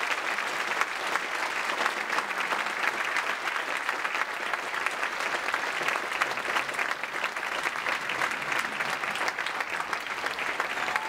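Audience applauding: dense, steady clapping from a theatre crowd that starts abruptly just before and holds without letting up.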